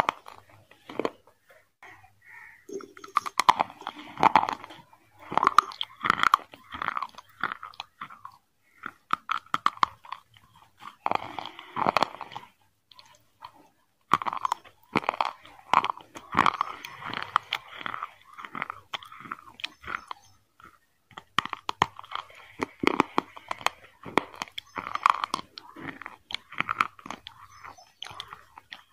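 A person eating chicken biryani by hand close to the microphone: chewing and biting with many sharp crunches, in bouts of a few seconds with short pauses between.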